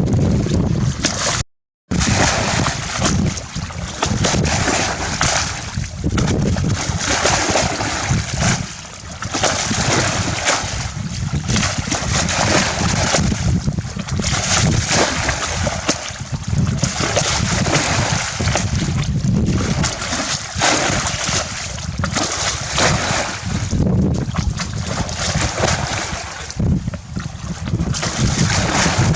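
Continuous splashing and churning water noise that surges unevenly, cut off briefly about a second and a half in.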